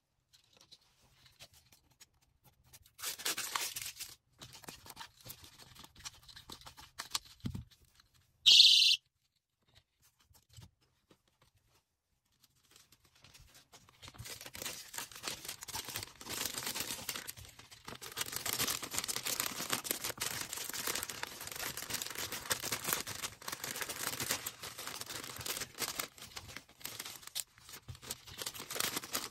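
Plastic packaging rustling and crinkling while being handled, with a tearing sound about three seconds in. About eight and a half seconds in, a doll-shaped personal safety alarm gives one very loud, high-pitched shriek lasting about half a second.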